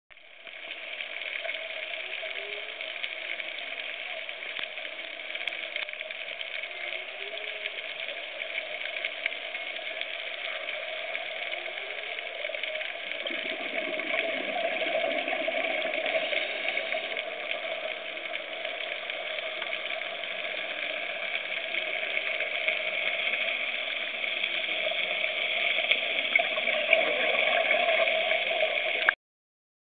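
Steady underwater ambient noise picked up by a camera submerged on a reef: a constant hiss with a steady hum under it, growing louder near the end.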